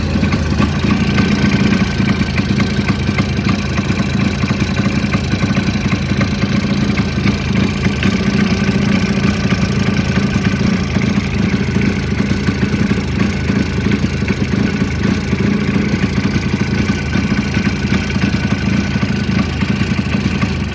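Jawa 638's 350 cc two-stroke twin engine running steadily at idle with an unpleasant knocking from the engine, the fault it was brought in for; the cause is not yet known and the engine is to be stripped down to find it.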